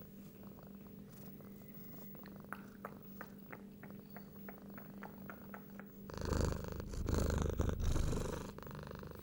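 Domestic cat purring steadily, with faint regular ticks over the purr in the middle. About six seconds in it turns much louder and rougher for about three seconds, close to the microphone.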